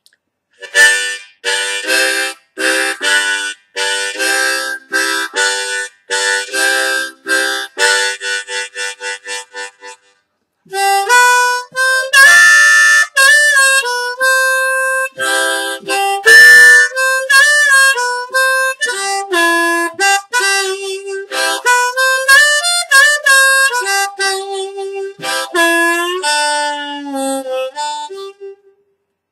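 Seydel diatonic harmonica in C with an aluminium comb and steel reeds, played solo. It opens with about ten seconds of short, rhythmic chord stabs that quicken toward the end, then goes into a single-note melody with several bent notes.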